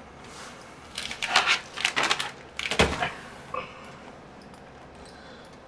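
Sealed cardboard trading-card boxes being handled on a table: a few brief scraping and knocking sounds between about one and three seconds in, the last with a dull thump as a box is set down.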